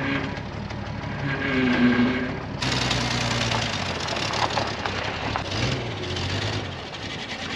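Ford 300 cubic-inch straight-six idling in a Jeep J-10 while the steering is turned. The power steering pump moans for about a second, with air in the system. Partway through the sound changes abruptly to the engine idling as heard from outside the truck.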